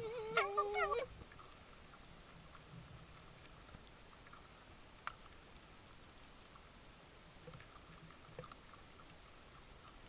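Red fox giving a short, wavering whine in the first second, with a pitch that wobbles up and down. After it, a single sharp click about five seconds in and a few faint ticks near the end.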